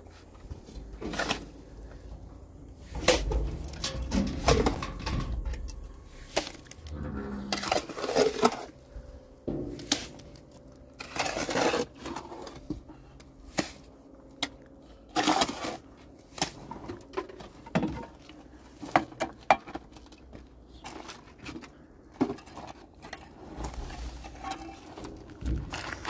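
Steel shovel scraping and clanking in a metal wheelbarrow as wet cement mortar is scooped out, in a string of irregular scrapes and knocks.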